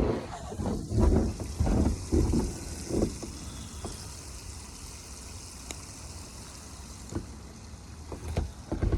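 Steady high sizzle of chicken skin frying in hot oil. Low rumbling thumps come in the first three seconds.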